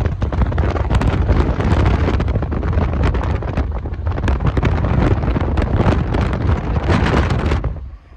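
Wind buffeting a phone's microphone in a moving car: a loud, noisy rush with heavy low rumble and irregular crackles, cutting off suddenly near the end.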